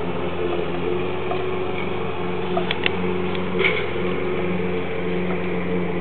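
A lawn mower's engine running steadily in the background, with a few sharp taps about halfway through from a bird pecking at its own reflection on a car's window or mirror.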